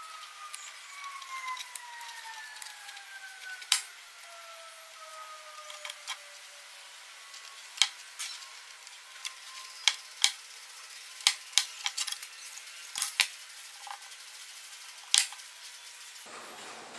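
Paper masking tape being pulled off its roll with a thin squeal that slides slowly down in pitch over several seconds, followed by scattered sharp clicks and taps as the tape is worked around a steel pipe.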